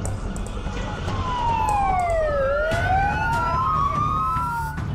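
Two ambulance sirens wailing at once, their slow rising and falling pitches crossing each other, over the noise of street traffic. The sirens start about a second in and cut off near the end.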